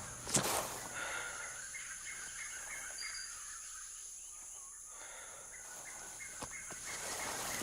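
Bird chirping in two quick runs of short, high, repeated notes, about four or five a second, with a brief rustle just at the start. A steady high hiss sits underneath.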